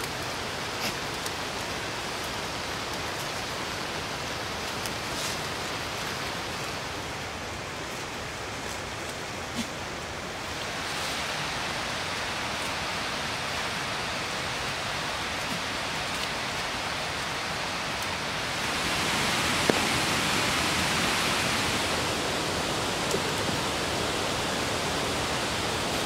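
Steady rushing noise of water, rain or running water, with a few faint clicks in the first ten seconds. It grows louder about ten seconds in and again about two-thirds of the way through.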